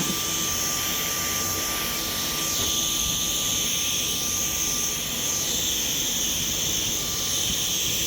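Vacuum cleaner running steadily while hoovering up cobwebs and small spiders. Its high, hissing whine shifts in tone now and then as the nozzle moves.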